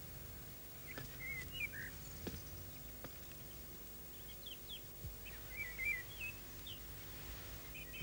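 Small songbirds chirping in short, scattered phrases, with a couple of bursts of twittering, over a steady low hum and a few faint knocks.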